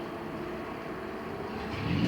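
Cabin sound of a LiAZ-6274 electric bus on the move: steady road and tyre noise with a faint motor hum. A louder low rumble builds near the end.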